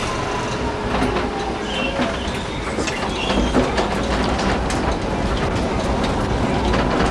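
Tram running along its rails, heard from the driver's cab: a steady rumble with irregular clicks and clatter over rail joints and points, and a few short wheel squeals as it takes the curve.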